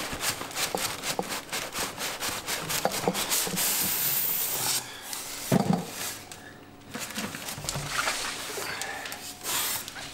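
Cardboard box and packing material rubbing, scraping and rustling as a boxed aquarium chiller is unpacked, with a single knock about five and a half seconds in.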